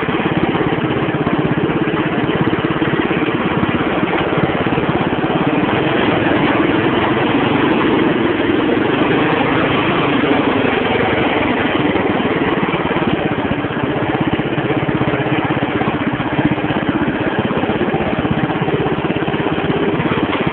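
Tractor engine running steadily at a constant speed, with an even, rapid firing beat and no revving.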